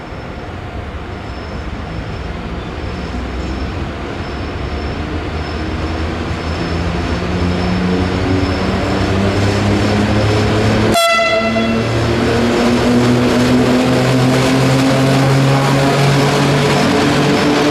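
E656 'Caimano' electric locomotive pulling away with its train, the traction motors whining in a pitch that slowly rises as it picks up speed and grows louder. About eleven seconds in there is one very short high toot, which fits a quick blast of the horn.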